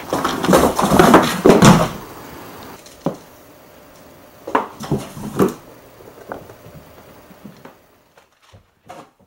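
A cat scrambling in and against cardboard boxes. A loud burst of scraping and thumping cardboard fills the first two seconds, followed by a single knock and then three more knocks about a second apart, with a few faint taps after.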